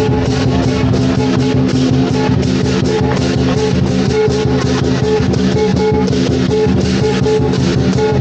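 Background music: a guitar-led track with a steady drum beat.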